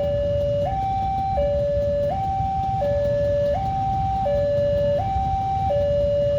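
Railway level crossing warning alarm sounding a steady two-tone signal, a higher and a lower tone alternating about every three quarters of a second, over a low rumble.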